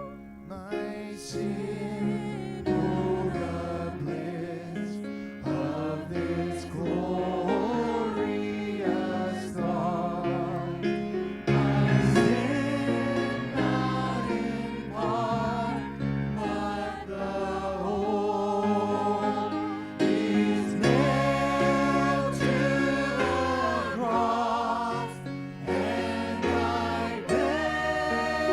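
Congregational worship music: a choir or group of singers with instrumental backing sings a slow song, the voices wavering with vibrato over held chords.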